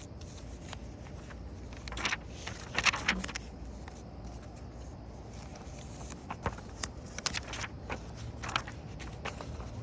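Paper pages of a spiral-free workbook being turned by hand: short swishes and rustles at irregular intervals, a few seconds apart, over a low steady hum.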